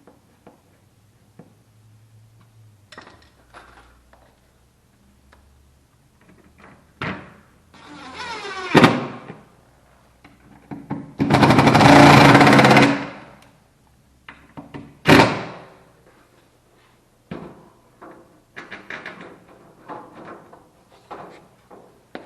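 Knocks and clunks of hand work with tools. A power tool runs for about two seconds in the middle, with sharp hits just before and after it.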